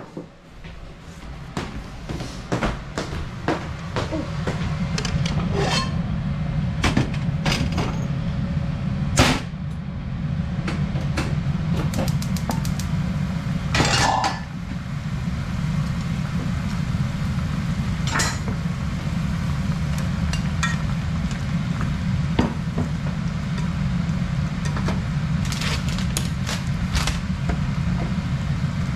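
Kitchen cooking sounds: a metal pot and utensils clinking and knocking at irregular moments over a steady low rumble.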